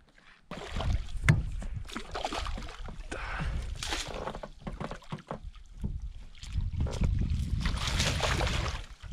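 A large hooked fish thrashing and splashing at the surface beside an aluminium boat while a landing net is swept through the water at it, a rapid run of splashes and knocks starting about half a second in.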